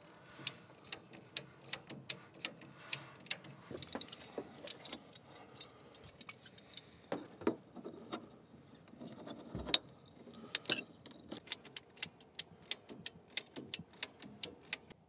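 Hand tools working PEX water tubing and brass fittings: a run of sharp clicks, about two a second, coming closer together for the last few seconds, with one louder snap about ten seconds in.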